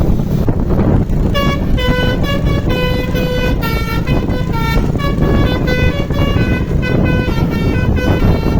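Basuri musical bus horn playing a quick melody of short notes, starting about a second in, over the steady low rumble of the bus.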